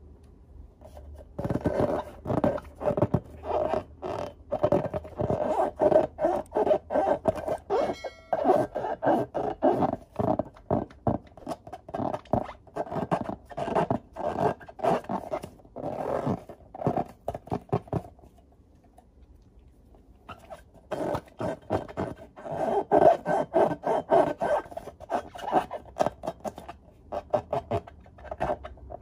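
Hands rubbing and squeezing filled latex balloons, the rubber squeaking and scraping in quick repeated strokes. The strokes start about a second and a half in, stop for about two seconds past the middle, then carry on.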